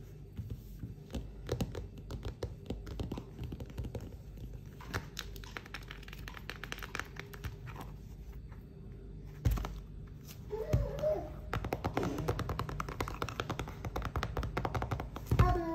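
Shrink-wrapped board book being handled and turned over: the plastic film crinkles and crackles, with light taps and a sharp thump about nine and a half seconds in.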